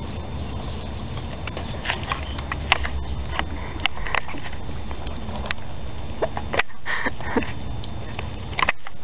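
Raccoons sniffing and moving about over a steady low rumble, with scattered sharp clicks and knocks.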